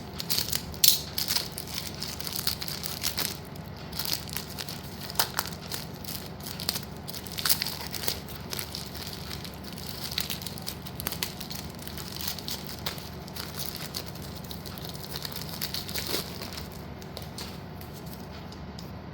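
Plastic packets crinkling and rustling as they are handled and opened, with many small irregular clicks and crackles.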